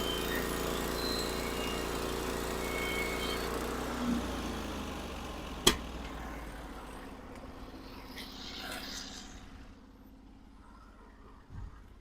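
Gas engine of a portable band sawmill running steadily, then dying away from about four seconds in as it is shut down or throttled back. A single sharp click comes a little before the middle.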